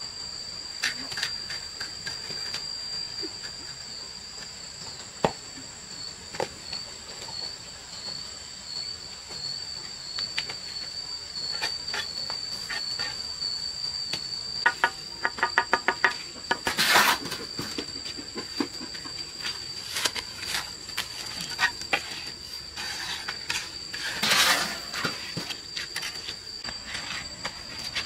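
Insects chirring in a steady high drone over a light hiss, with scattered knocks, a quick rattle about halfway through and two louder scraping bursts later on.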